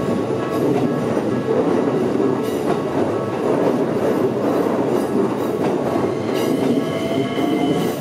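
A Keikyu electric train passes close by, with a loud, steady rumble of wheels on the rails. A faint rising whine comes in near the end.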